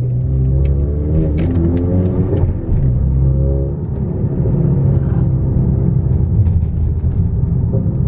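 Straight-piped turbocharged Honda Accord engine and exhaust running loud under load while driving, the note rising and dropping in pitch as it revs and comes off the throttle.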